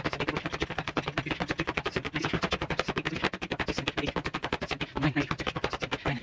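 Rapid, steady slapping of a paper painting with the neck of a stringed instrument, about eight to ten sharp slaps a second.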